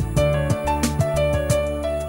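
Gentle background music: plucked notes about twice a second over a steady held chord.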